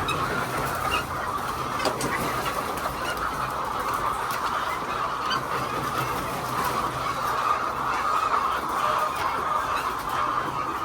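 A large flock of laying hens clucking, many birds at once in a continuous, steady din.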